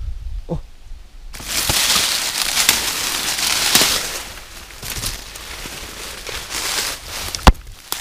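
Footsteps in rubber boots crunching through dry fallen leaves and brushing past leafy branches, starting about a second in as a dense crackling. A single sharp click near the end is the loudest sound.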